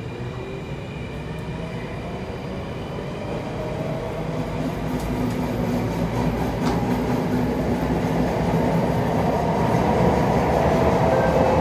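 Alstom C830 metro train picking up speed, its motor whine gliding upward while the wheel and running noise grows steadily louder.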